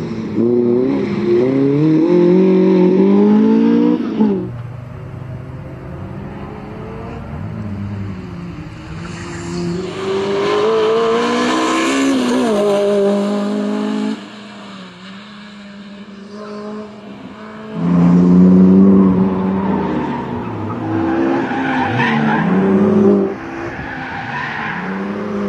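Lotus Elise's swapped-in Honda K20A four-cylinder engine revving hard, the pitch climbing and then dropping several times as it shifts gear and lifts. Tyres squeal and skid through the corners, most plainly about halfway through.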